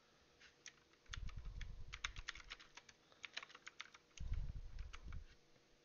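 Typing on a computer keyboard: quiet rapid keystrokes in two short runs, one about a second in and another about four seconds in, with a low thud under each run.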